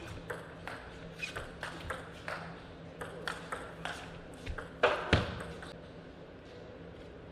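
Celluloid-type table tennis ball clicking back and forth off rackets and table in a fast rally, about three hits a second. Two louder hits come about five seconds in as the point ends, and then the clicking stops.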